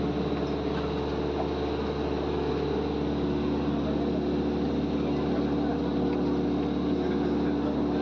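Steady drone of an airplane, a constant low hum with a thin high whine above it.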